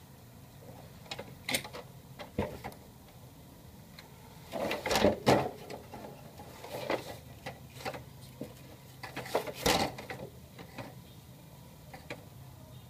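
HP LaserJet Pro M225dw laser printer mechanism clicking over a low steady hum, with two louder short bursts of mechanical clatter about five and nine and a half seconds in.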